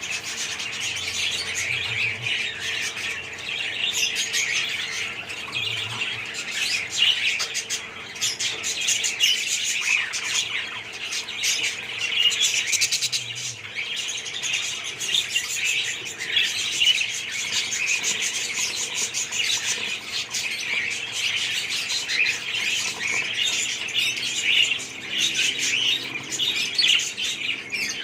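A colony of budgerigars chattering and chirping together, a continuous dense warble of many birds at once.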